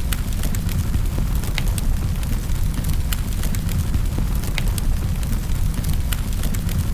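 Wood fire crackling in a fireplace: a steady low rumble of flames with sharp, irregular pops and snaps.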